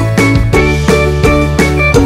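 Instrumental background music with a steady, even beat of about three notes a second over held bass notes.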